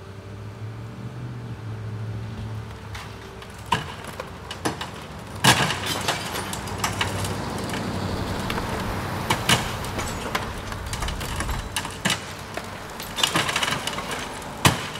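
Hydraulic excavator's toothed bucket breaking up a brick wall: sharp cracks and clattering of brick and masonry coming apart and falling, over the steady rumble of the machine and passing street traffic. A cluster of cracks comes near the end as a section breaks away in a cloud of dust.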